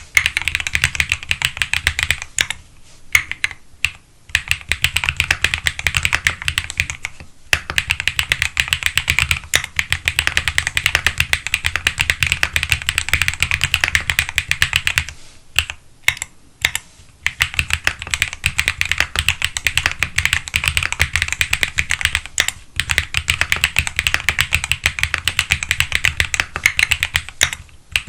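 Fast continuous typing on a Graystudio Space 65 III mechanical keyboard with Gateron Pure Berry switches: a rapid stream of key clicks, broken by a few brief pauses.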